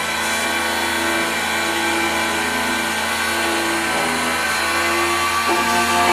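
Multifunction key-duplicating machine running steadily, its milling cutter cutting the track of a regata (laser-track) key copy under light downward pressure, with a constant motor hum and tones that shift in pitch now and then.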